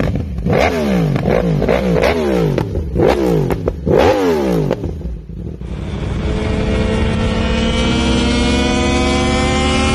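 2020 Yamaha R1's crossplane inline-four revved hard while stationary, each throttle blip shooting up and falling straight back, roughly one rev every 0.7 seconds. About halfway through it switches to the engine pulling steadily in sixth gear at high speed, its pitch slowly rising as the bike accelerates.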